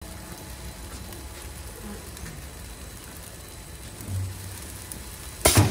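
Automatic nurungji rice-cracker press machine running: a steady hiss over a low hum, a low thud about four seconds in, and a sudden loud burst of noise near the end.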